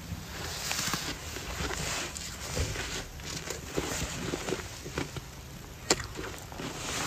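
Fresh snow being chewed: irregular crisp crunches and clicks, the sharpest about six seconds in.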